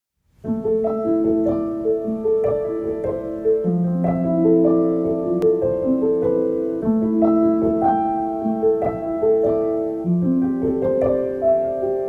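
Background piano music: a gentle melody of held notes, about two a second, over a lower accompaniment.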